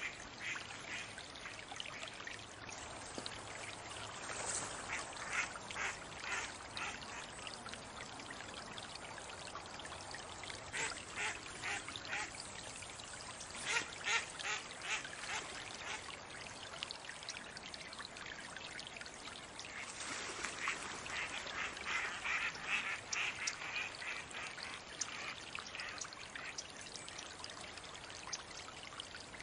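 Mallards quacking in several runs of rapid calls, over a steady rush of water.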